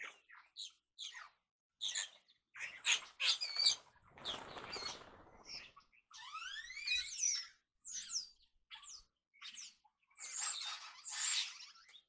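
European starlings calling: a string of quick chirps, a longer harsh call about four seconds in, then several rising slurred whistles, with more chirping near the end.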